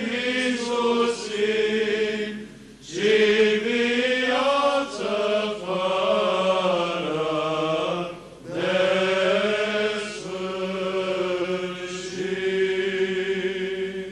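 Male church chanters singing Orthodox Byzantine chant, with moving melody lines over a low held drone note. The singing comes in phrases with short breaks about three and eight seconds in, and it ends right at the close.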